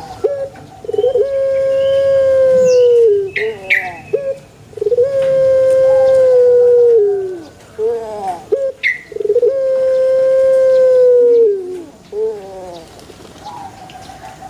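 Puter pelung dove cooing: three long drawn-out coos, each held level for about two seconds before sliding down, followed each time by a few short falling notes.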